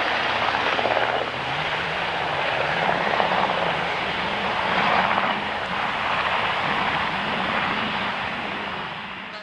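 NH90 helicopter in flight: the main and tail rotors and twin turboshaft engines make a steady, loud noise with a low hum underneath, fading somewhat near the end.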